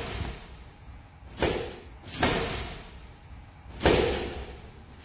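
Karate strikes landing with hard thuds: three hits, the last the loudest, each followed by a short echo.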